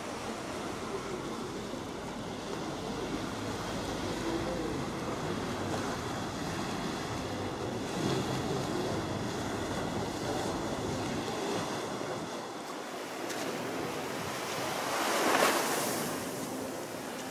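Ocean surf washing onto the beach: a steady rush of small waves, with some wind on the microphone. One wave swells up and breaks louder about fifteen seconds in, then falls away.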